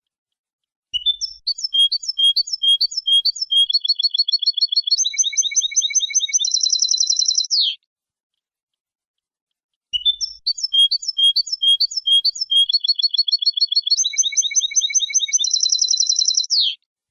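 Recorded song of a European goldfinch: a phrase of quick repeated notes and fast trills, played twice identically with a clean silent gap between, as in a looped training recording for cage birds.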